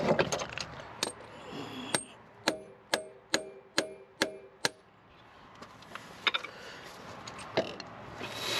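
Front axle being worked into place on a 2005 GMC Envoy. A clatter of metal parts, then seven sharp, ringing metal-on-metal taps a little over two a second as the axle is driven home onto its splines, then a couple of lighter knocks.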